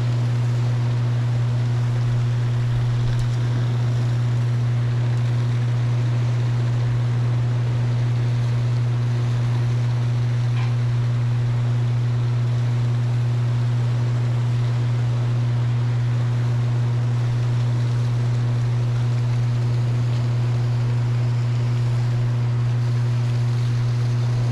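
Steady low hum with a few overtones from a hydroelectric dam, over the even rush of water churning out below the dam.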